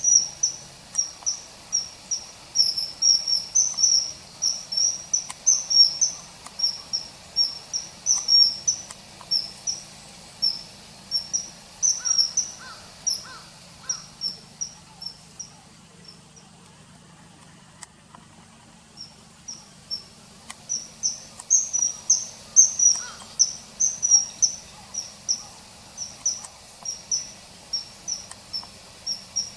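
Common kingfisher calling: a fast series of short, high, piercing whistles, two or three a second. The calls stop for about four seconds past the middle, then start again.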